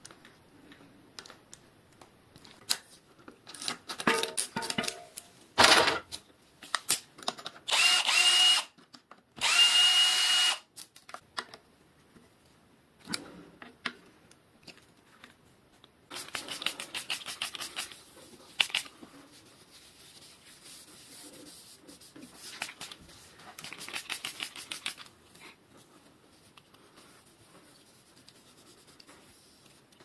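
A small power drill/driver runs steadily in two short bursts, each about a second long, about eight and ten seconds in. Around them come trains of rapid clicking and scattered knocks from tools and parts being handled.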